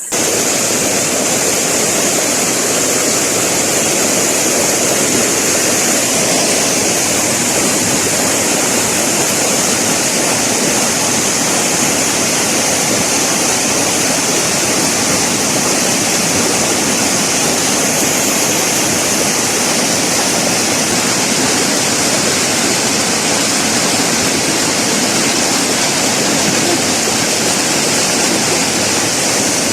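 Steady, loud rushing of river water, an even noise with no breaks or distinct events.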